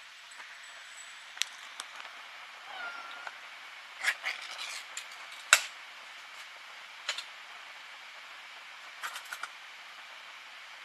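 A cat gives one short meow that rises and then holds, about three seconds in. Around it come scattered sharp clicks and knocks as kitchen things and a can are handled, the loudest knock about halfway through.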